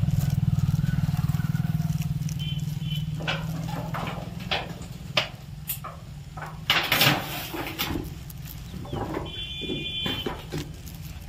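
Knocks and rattles of a garden gate being handled and shut, the loudest about seven seconds in, under a low rumble that fades over the first few seconds. A short high call comes twice, from the Alexandrine parakeets.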